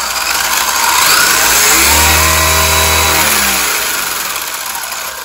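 Wltoys 124018 RC buggy's electric motor and drivetrain whining up in pitch as the throttle trigger is squeezed progressively, holding near the top for about a second, then winding down and fading. This is proportional throttle control: motor speed follows how far the trigger is pulled.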